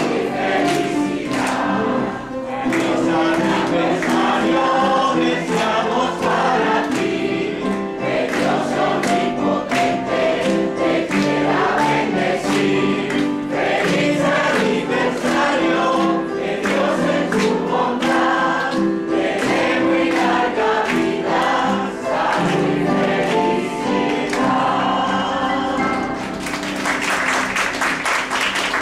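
A congregation singing together in Spanish with piano accompaniment, a celebratory song for a birthday and baptism anniversary. Clapping joins in near the end as the song finishes.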